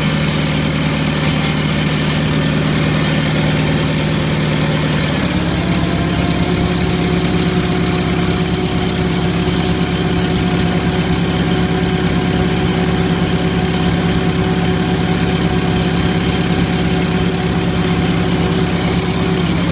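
Hyster H40 forklift engine idling, then picking up speed about five seconds in and running steadily at the higher speed, easing back slightly near the end, while its transmission pressures are being checked.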